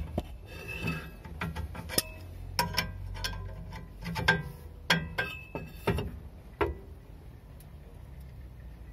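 Sharp, irregular metal clicks and clinks, several ringing briefly, as the forcing screw of a homemade brake-disc puller is turned with a wrench. The brake disc is rusted onto its hub and is not yet moving. The clicking stops about two seconds before the end.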